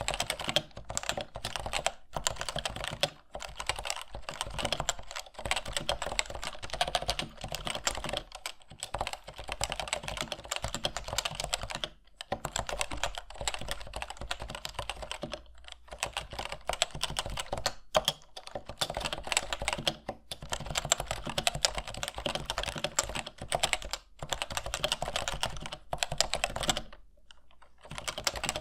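Topre Type Heaven keyboard with stock ABS keycaps being typed on fast and continuously. Its Topre capacitive rubber-dome switches give a dense run of keystrokes, with brief pauses every few seconds.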